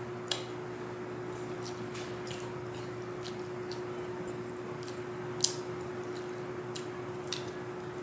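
Mukbang eating sounds: chewing and lip smacks with scattered sharp clicks, the loudest about five and a half seconds in, over a steady low hum.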